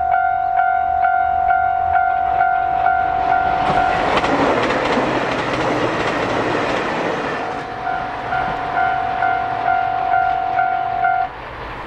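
Japanese railway level-crossing warning bell ringing its repeated "kan-kan" chime, about two and a half strikes a second. About four seconds in, a passing train's rushing noise drowns it out for a few seconds. The bell then comes back and stops suddenly near the end, the sign that the crossing is clearing after the train has passed.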